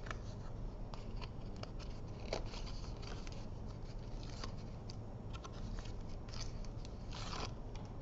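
Backing paper being peeled off foam adhesive strips on a paper frame: faint scattered rustles and small crackling peels, with a short louder one near the end.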